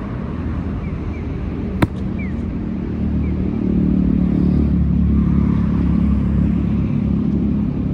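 A large Buddhist mokugyo striker brought down on paving stones: one sharp knock about two seconds in. Behind it runs a steady traffic rumble that swells about three and a half seconds in.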